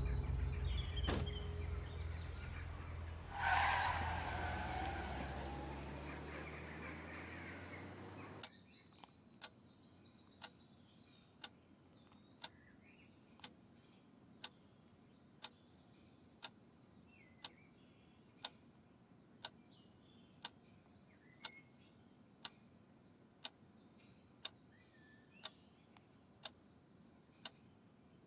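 Background music fading out while a car door slams shut and the car starts up and pulls away. After a sudden cut, a wooden mantel clock ticks steadily, about once a second, in a quiet room.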